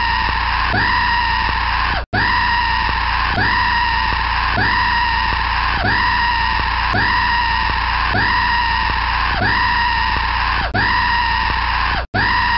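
Jump-scare screamer sound effect: a loud, shrieking scream, the same short cry looped about every second and a quarter over a steady low drone. It cuts out briefly twice.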